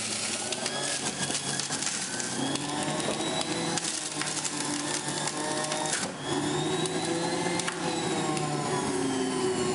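Electric centrifugal juicer running while celery is pushed down its feed tube with the plunger, its motor whine sagging and rising as the celery loads the spinning cutter.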